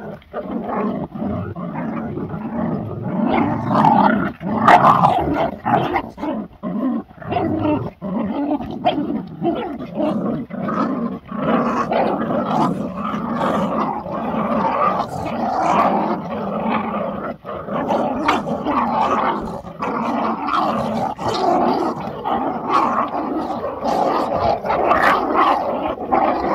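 Several pit bull puppies growling continuously as they bite and tug at a cloth dangled over them in play.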